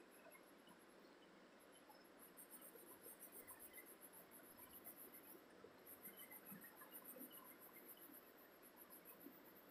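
Near silence with faint, high-pitched insect chirring that pulses in two stretches of a few seconds each in the middle.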